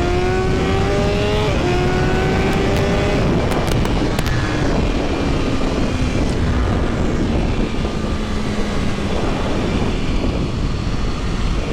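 2021 BMW S1000RR inline-four engine running hard through its stock exhaust on an ECU flashed to Brentune Stage 2. The revs climb, the pitch steps down once about a second and a half in, then the engine slowly winds down.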